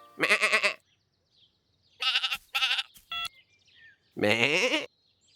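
Cartoon sheep bleating in short, separate calls, four times, with a brief steady tone among them.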